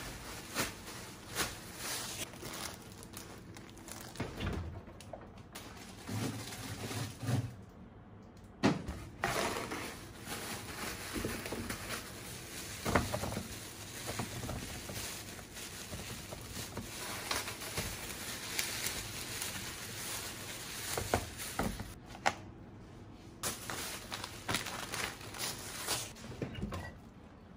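Thin plastic grocery bags rustling and crinkling as produce is unpacked, with scattered small knocks and thumps as onions are set into a plastic colander.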